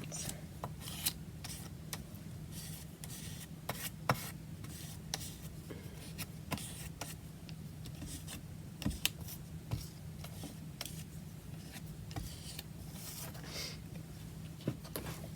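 Gesso being spread over a card tag: soft, irregular rubbing and scraping strokes with a few light taps, over a steady low hum.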